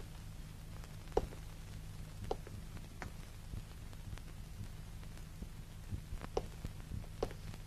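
Slow single footsteps of shoes on a hard corridor floor, about a second apart with a pause in the middle, over a steady low hum.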